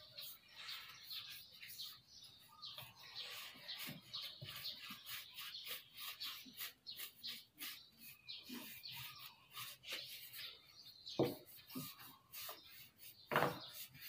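Quick, repeated rubbing and brushing strokes of a cloth pad and brush working wood stain into a carved wooden door panel, with birds chirping in the background. Two louder knocks come near the end.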